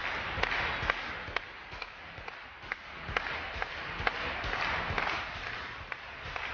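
Audience applauding: a thin, swelling wash of clapping with many single sharp claps standing out.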